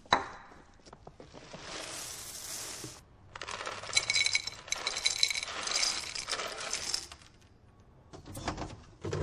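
Dry cereal pouring from a plastic container onto a metal mesh strainer and into a bowl: a dense rattling clatter of small hard pieces with a metallic ring, lasting about four seconds before it fades. A sharp knock comes right at the start.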